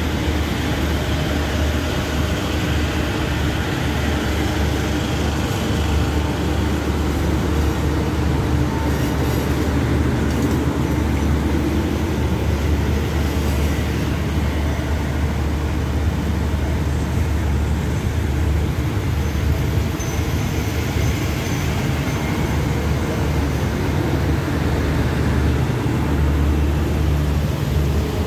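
Thai passenger train at the station platform, its carriages giving a steady low rumble that carries on without a break.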